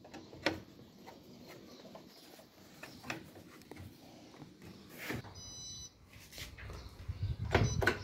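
Clicks and knocks of plastic parts being handled on an Electrolux top-load washing machine, with an electronic beep of a bit under a second about five seconds in: the washer's control panel beeping as it powers up after the repair to its board. The knocks grow louder near the end.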